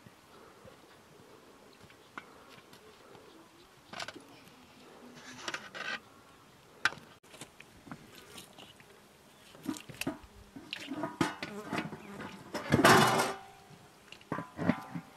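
A knife cutting raw chicken over metal bowls: scattered clicks and knocks of the blade and meat against aluminium, busier in the second half. Near the end comes a short, louder sound with a pitched tone, the loudest thing heard.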